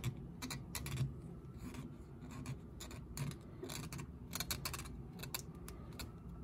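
Faint, irregular scratchy clicks and rubbing of a fingertip on the metal sole of a hand plane. The sole is coarsely ground, with belt-sander scratch marks.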